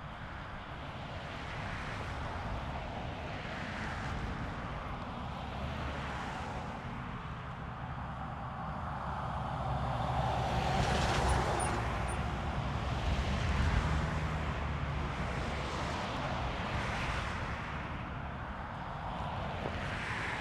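Outdoor wind and road-traffic noise: a steady rumbling hiss that swells and fades in slow waves as vehicles pass, loudest about halfway through.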